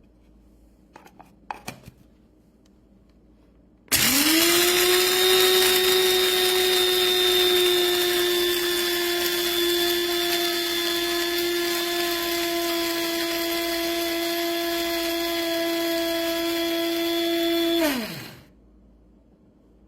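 Bodum Bistro electric blade coffee grinder running: a few light clicks, then the motor spins up sharply about four seconds in, holds a steady high whine for about fourteen seconds, and spins down near the end.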